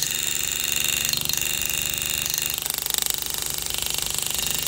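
GraverMax pneumatic hammer handpiece running in very rapid, even strokes, hammering the metal walls of a channel setting down over a diamond to lock the stone tight.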